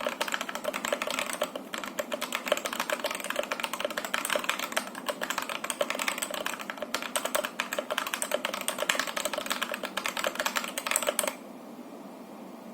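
Fast typing on a Daxa M71 Classic mechanical keyboard with stock Boba U4T tactile switches: a dense, rapid clatter of keystrokes, recorded through a phone's microphone. The typing stops abruptly about eleven seconds in, leaving only a faint hiss.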